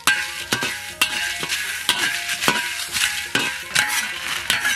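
Metal ladle scraping and knocking against a dry wok as whole dried red chilies are stirred and toasted, with irregular knocks about twice a second over a steady light hiss.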